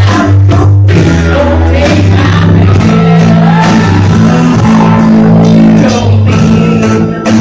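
Live rock band playing loud and steady: drums, guitar and harmonica, with a singing voice.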